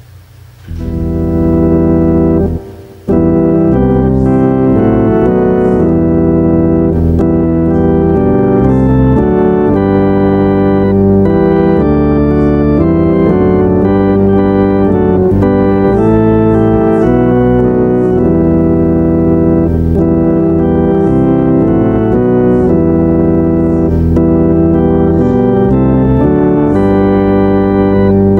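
Organ playing sustained chords that change in steps. A first chord sounds about a second in, there is a short break, and continuous organ music follows from about three seconds in.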